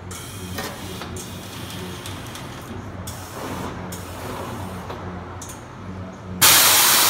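Air-bag suspension on a Chevrolet S10 pickup: short hisses of air going into the bags over a steady low hum as the truck rises, then, about six seconds in, a sudden loud steady hiss as the bags dump their air to lower it.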